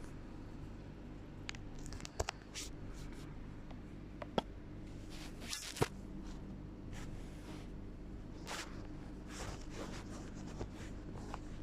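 A sleeping person's noisy breathing, snore-like breaths about every three seconds, with a few small clicks, over a steady low hum.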